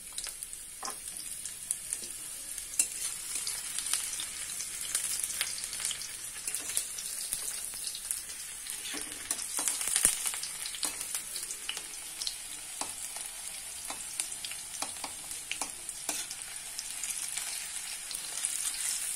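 Sliced onions sizzling in hot oil in a kadai, with the steady high hiss broken by frequent short clicks and scrapes of a spatula stirring them against the pan.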